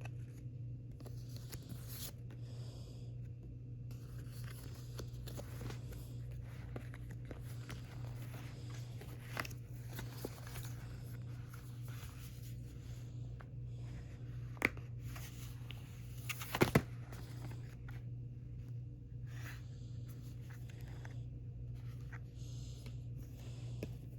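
Packaging being handled and opened: intermittent rustling, tearing and scraping of paper, cardboard or plastic wrap, with a few sharp clicks or taps. A steady low hum runs underneath.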